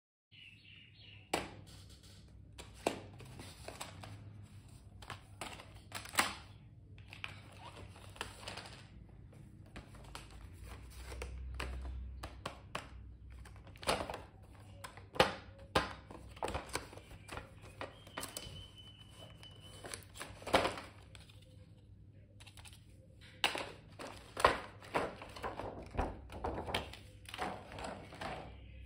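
Hands handling boxed stationery sets and their plastic packaging: irregular taps, knocks and clicks of cardboard and plastic, with light rustling between them. A brief high tone sounds in the first second, and another steady high tone lasts a couple of seconds about two-thirds of the way through.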